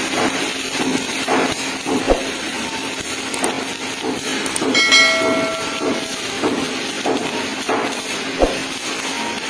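MIG welding arc crackling and hissing steadily, with two sharp metal knocks and a ringing metallic clang about halfway through.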